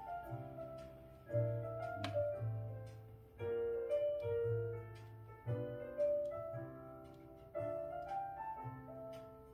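Background piano music: gentle chords over a steady bass line, with a new phrase coming in every second or two.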